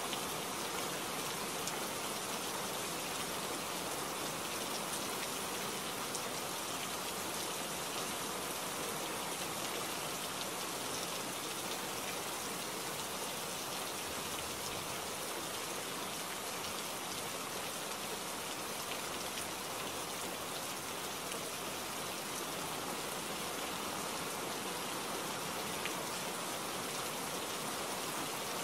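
Steady rain falling, an even hiss with fine patter of individual drops, unchanging throughout.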